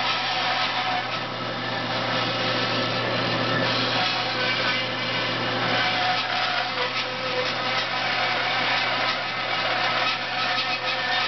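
INCA bandsaw running with a steady low hum while its blade cuts through a turned wooden piece along a marked line.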